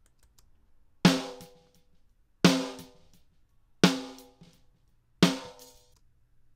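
Four snare drum hits from a sample played back, evenly spaced about a second and a half apart, each a sharp crack with a short ringing tail that dies away.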